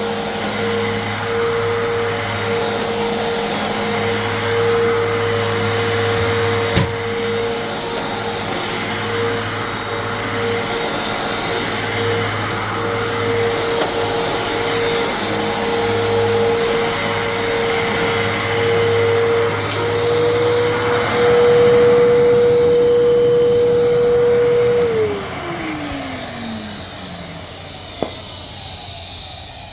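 Fantom Fury 12-amp vacuum cleaner running with a steady motor whine and a sharp click about 7 s in. About 25 s in it is switched off and the motor whine falls in pitch as it spins down.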